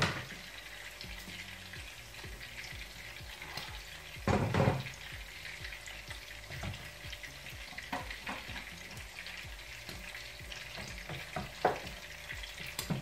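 Eggplant omelette with minced meat sizzling steadily in oil in a frying pan, with scattered short knocks of kitchen utensils and one louder clunk about four seconds in.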